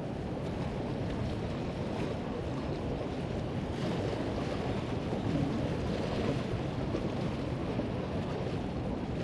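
Steady wind noise on the microphone, with small waves washing and lapping against the jetty rocks.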